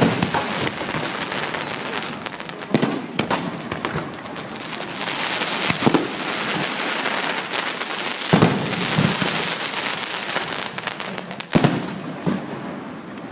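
Fireworks going off: a steady crackle with loud booms every second or few, several of them echoing.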